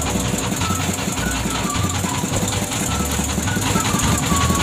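Small fishing boat's engine running steadily with a fast, even knocking beat.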